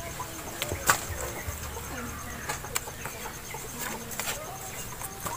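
Sharp clicks and taps from hands working twine around a live mud crab to tie it, the loudest about a second in, over faint animal calls in the background.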